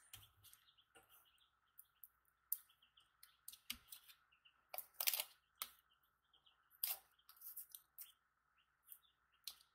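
Paper and small packets crinkling and rustling as they are handled, in scattered short crackles, loudest about five and seven seconds in, over a faint steady high hum.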